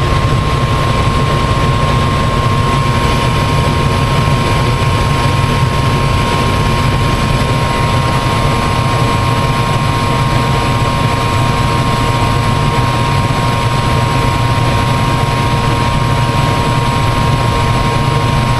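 Gas forced-air furnace running with its burners lit and blower fan on: a steady, even rushing hum with a constant whine on top.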